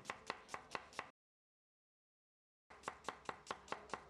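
Kitchen knife slicing a red onion into rings on a wooden cutting board, with quick even chops about four or five a second. The chopping breaks off for about a second and a half of dead silence, then resumes near the end.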